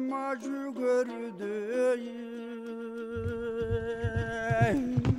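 Background music: a voice-like melody of long held, slightly wavering notes. About three seconds in, a low, fast rhythmic pulse joins underneath.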